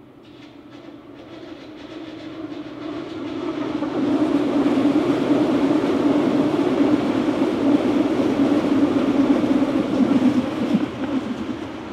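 Berlin U-Bahn train passing close by on the rails: its running noise grows louder over the first four seconds, stays loud and steady with a low hum, then falls away near the end as the train runs off.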